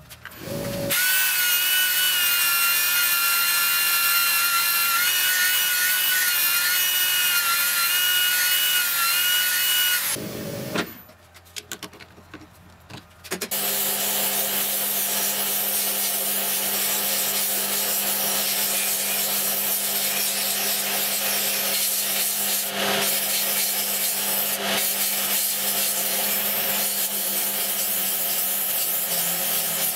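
For about the first ten seconds a power tool runs with a high, wavering whine. After a short lull, a stationary disc sander runs with a steady hum while the bottom of a wooden spoon's bowl is pressed and rubbed against its abrasive disc, sanding it flat.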